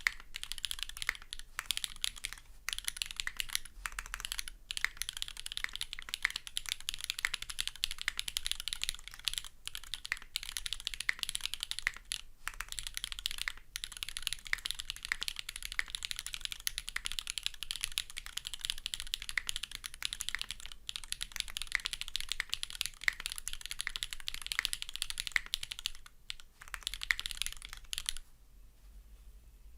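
Fast continuous typing on a SINGA Kohaku gasket-mount mechanical keyboard with an aluminium plate, GEON Black linear switches lubed with Krytox 205g0, and GMK keycaps. The typing has brief pauses now and then and stops about two seconds before the end.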